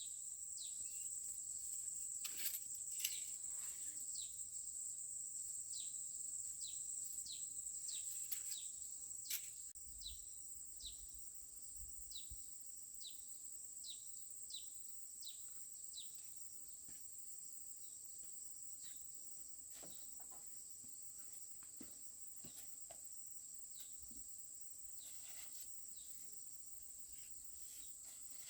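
Insects droning steadily in one high, thin tone, with short falling chirps repeated about once or twice a second. A few sharp crackles come in the first ten seconds.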